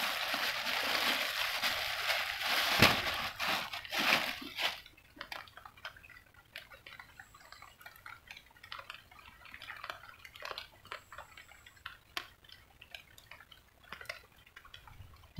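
Plastic bag crinkling as it is handled for about five seconds, then faint scattered drips and light clicks.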